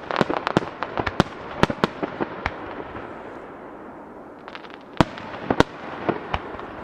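Aerial firework shells bursting in quick succession, sharp bangs over a crackling haze of stars. The bangs thin out midway, then two loud bangs come about five seconds in.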